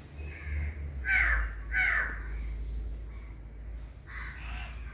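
Crows cawing: two harsh caws close together about a second in, and another weaker one near the end, over a low steady rumble.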